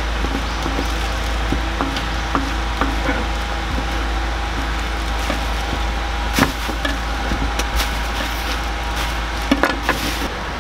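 Kitchen knife slicing sundae (Korean blood sausage) on a wooden cutting board, the blade knocking on the board now and then, with a sharper knock about six seconds in and a few close together near the end. Under it runs a steady low hum and noise.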